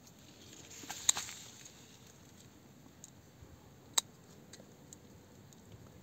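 Small garden scissors snipping berries out of a tight grape cluster: a few quiet sharp snips, about a second in and again about four seconds in, with faint rustling of the bunch being handled.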